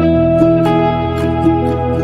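Background instrumental music: plucked guitar notes over sustained tones.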